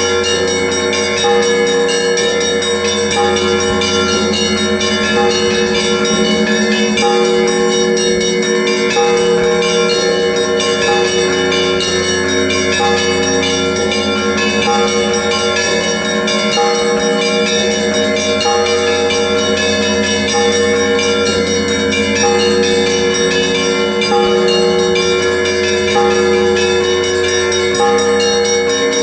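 Russian Orthodox monastery bells ringing a continuous peal: smaller bells are struck in a steady pattern about once a second over the sustained hum of the larger bells.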